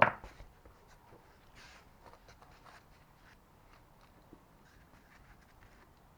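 A single sharp knock right at the start, then faint scattered clicks and rustles of parts and tools being handled on a workbench.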